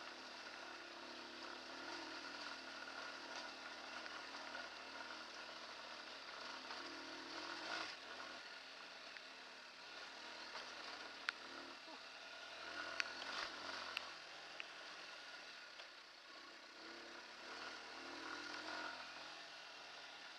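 A Hartford VR150's 150cc single-cylinder air-cooled engine running as the bike is ridden over a rough, stony dirt track, its pitch rising and falling with the throttle. A few sharp clicks and knocks come a little past halfway.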